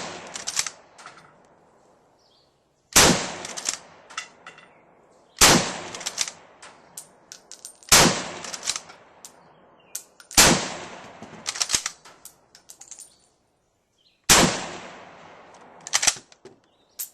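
Carcano 91/41 bolt-action rifle in 6.5x52mm fired five times in quick succession, mostly about two and a half seconds apart, with a longer gap before the last. Between shots comes the short clatter of the bolt being worked.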